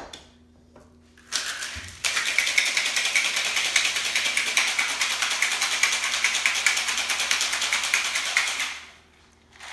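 A whiskey sour being shaken with ice in a stainless steel three-piece cocktail shaker: a fast, even rattle that starts about two seconds in and stops near the end.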